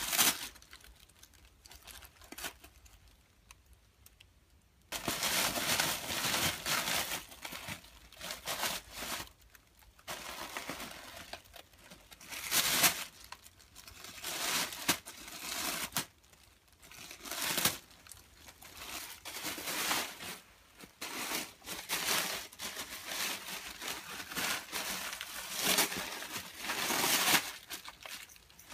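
Christmas gift wrapping crinkling and rustling in irregular bursts with short pauses, sparse for the first five seconds and then almost continuous.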